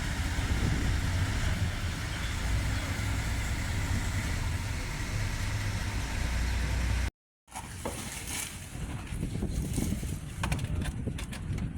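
Engine running with a steady low rumble for about seven seconds; after an abrupt cut it gives way to scattered knocks and clatter.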